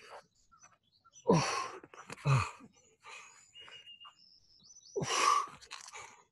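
Hard, forceful exhales of a man straining through a bodyweight exercise interval: three loud breaths, some with a grunt in them, about a second in, at two seconds and again at five. Birds chirp faintly in between.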